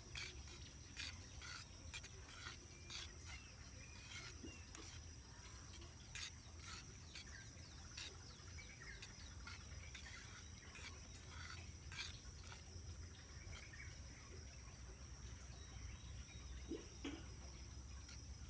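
Faint, steady high-pitched chirring of insects such as crickets, with scattered light clicks over it.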